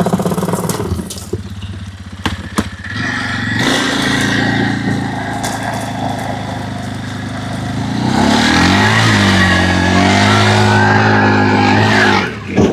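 AGT H12 mini excavator engine running, with a few knocks in the first few seconds. About 8 seconds in, the engine revs up under hydraulic load, its pitch wavering, then holds higher and louder.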